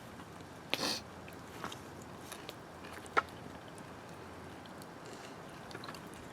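Quiet sounds of cooked duck being cut up by hand: a short scrape just before a second in, a sharp click a little after three seconds, and a few small ticks over faint background hiss.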